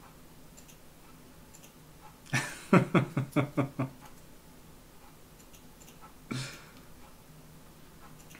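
A man laughing: a quick run of about six 'ha' pulses about two seconds in, then one short breathy laugh a few seconds later.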